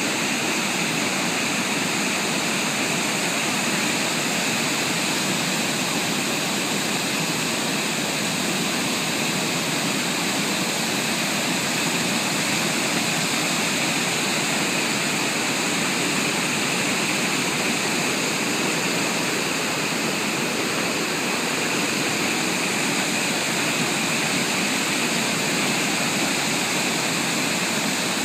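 Water pouring over a weir: a steady, unbroken rushing roar of falling water.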